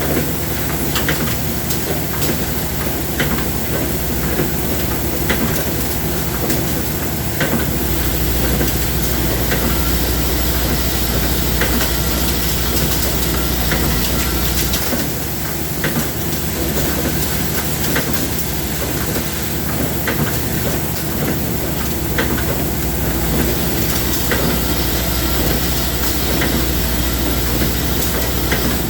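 Machinery running steadily, with scattered clicks and ticks throughout. A deep low hum comes on about eight seconds in, drops out around fifteen seconds, and comes back just after twenty seconds.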